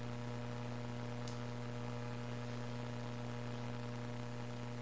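Steady low electrical mains hum with an even background hiss, and one faint tick about a second in.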